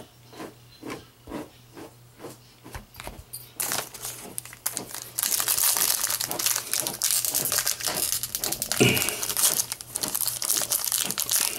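Soft, even rustles, about three a second, then, about three and a half seconds in, the loud crinkling and tearing of a foil Panini Prizm trading-card pack wrapper being ripped open and crumpled by hand.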